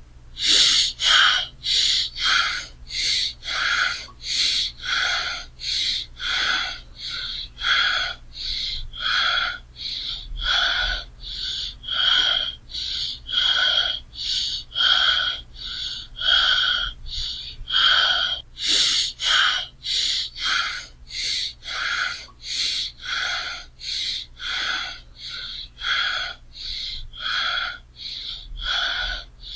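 A person breathing heavily and fast, quick even breaths in and out, one after another without pause.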